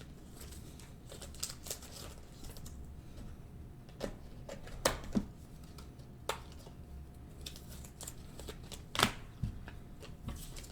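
Trading cards being handled and flipped through, with scattered soft clicks and slides of card stock and a few sharper taps about four to five seconds in and again about nine seconds in.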